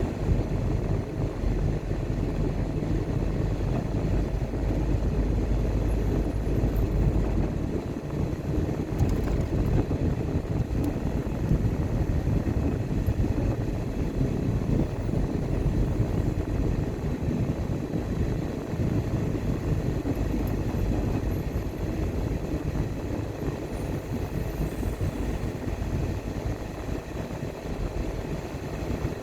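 Car driving along a road: a steady low rumble of tyre and engine noise, whose deepest part eases slightly about seven seconds in.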